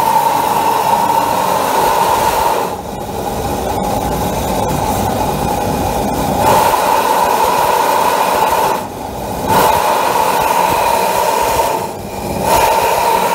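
Air-assisted forge burner with a Hyper Force nozzle firing at full blast: a loud, steady rush of flame and air with a strong tone running through it. Its level dips a few times, about three seconds in and again near nine and twelve seconds.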